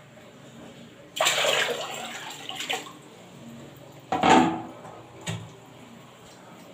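Water poured out of a plastic basin, splashing loudly for about a second and a half, then a second, shorter splash about three seconds later.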